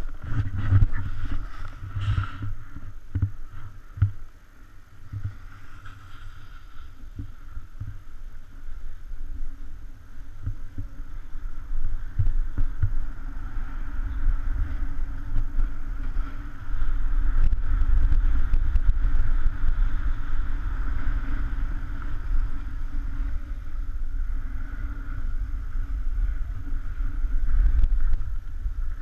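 Wind noise on the camera microphone and a snowboard sliding and scraping over groomed snow during a run downhill, louder from about halfway through as the rider picks up speed.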